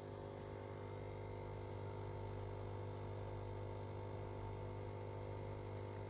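Steady low electrical hum with a faint buzz from running aquarium equipment (filter and pumps), unchanging throughout.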